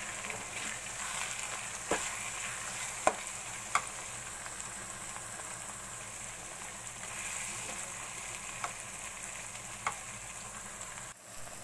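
A spiced onion-and-tomato tadka sizzling in hot oil while it is stirred, with a few sharp knocks of the spoon against the pan.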